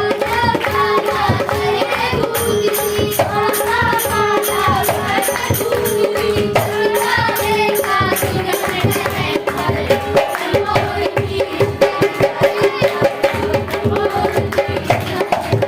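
A voice singing a melody over a steady held drone note and fast hand percussion. The singing drops out about halfway, leaving the percussion and drone playing on.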